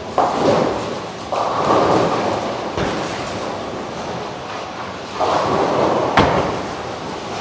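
Bowling alley din: bowling balls rumbling down the lanes and pins crashing, heard as three sudden clattering surges with two sharp knocks between them.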